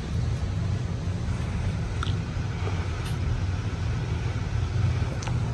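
52-inch Gulf Coast Trinidad ceiling fan running, heard as a steady low rumble with a faint hiss of moving air.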